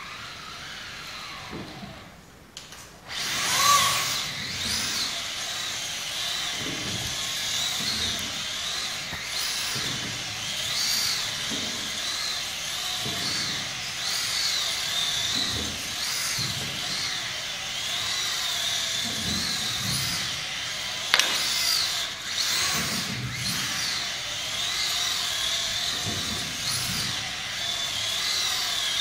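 Scaled model car's electric drive motor whining, starting loud about three seconds in, its pitch wavering up and down as the car drifts in circles on carpet under an automatic drift controller. A sharp click about 21 seconds in.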